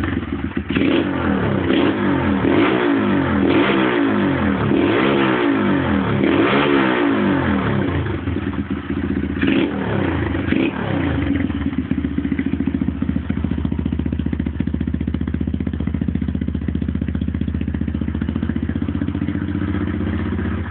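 Skyteam PBR 125's single-cylinder four-stroke engine, heard through an NHRC exhaust with the dB killer removed. It is blipped repeatedly in quick revs for about the first ten seconds, then settles to a steady idle.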